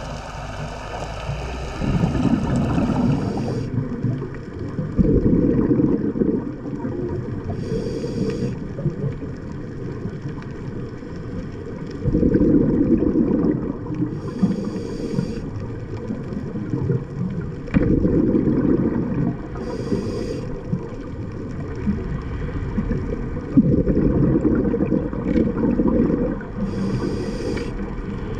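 A scuba diver breathing through a regulator underwater, in a slow regular cycle about every six seconds: a short hiss of air on each inhale and a louder, longer rumble of exhaled bubbles.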